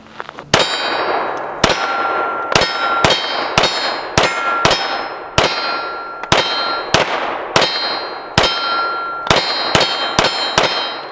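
Sig Sauer P226 9mm pistol fired in a steady string, about two shots a second, with Sig V-Crown 124 grain jacketed hollow points. Each shot is followed by a brief metallic ringing.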